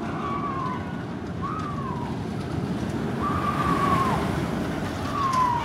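Vekoma Flying Dutchman flying roller coaster train running along its steel track with a steady rumble, loudest about four seconds in. Four short tones, each falling in pitch, ring out over the rumble.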